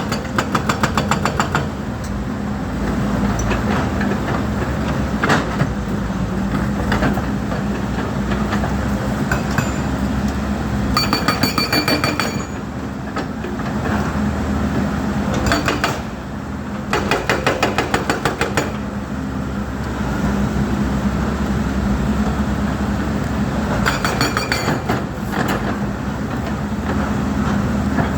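Volvo EC210D excavator's diesel engine running steadily, broken four times by short spells of rapid metallic clattering, several clanks a second.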